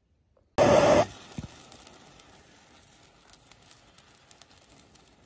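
Bamboo color sparkler firework catching with a short loud burst of noise about half a second in, then burning with a soft steady hiss and scattered small crackles.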